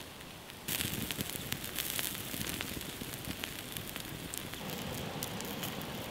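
Cumberland sausages sizzling on a wire grill over a wood campfire, with the fire crackling in many sharp little pops. It starts abruptly just under a second in, after a fainter steady hiss.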